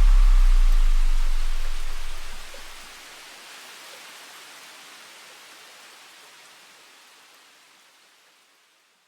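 The end of an electronic music track. A deep bass note dies away over the first two and a half seconds, leaving a hiss of noise that slowly fades out to silence near the end.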